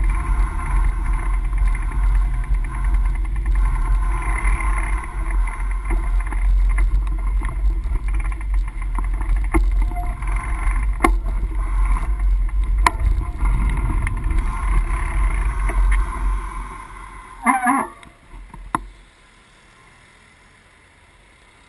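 Wind buffeting a bike-mounted action camera's microphone, with rolling rumble and occasional clicks and rattles from the ride. The noise dies away about three-quarters through, a brief louder sound follows, and then only a low, steady hush remains.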